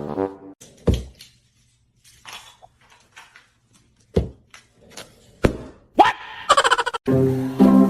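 A few separate dull thumps with quiet gaps between them, then a brief high pitched cry near the end, before music starts.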